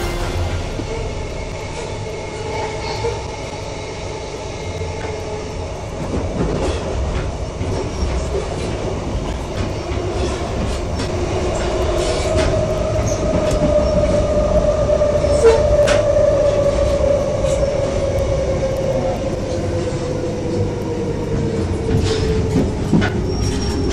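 Electric commuter train running, heard from inside the carriage: a steady rumble with scattered clicks. From about halfway through, a tone slowly falls in pitch.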